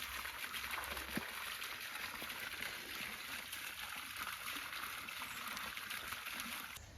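Water running steadily, like water pouring or streaming, with a few faint knocks underneath. It cuts off abruptly just before the end.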